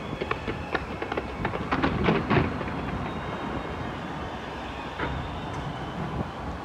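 Fireworks going off over a steady rumble: scattered sharp cracks and crackling, with a dense cluster of louder bangs about two seconds in.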